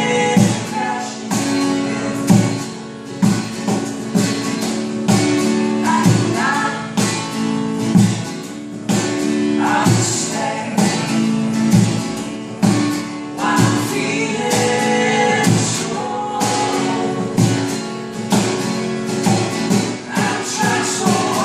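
A song with singing over guitar, with a steady beat throughout.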